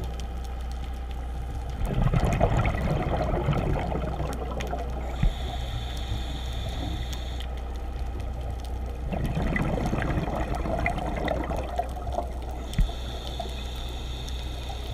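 A scuba diver breathing underwater: two bursts of exhaled bubbles from the regulator, about seven seconds apart, each followed by a thin high hiss as the diver inhales. A steady low hum runs underneath.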